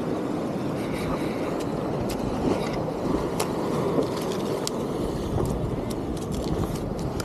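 Steady rush of wind and surf on the microphone, with scattered light clicks and taps, more of them in the second half.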